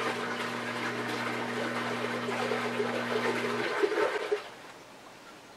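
Rushing water with a steady low hum under it. The hum stops about three and a half seconds in and the water stops about a second later.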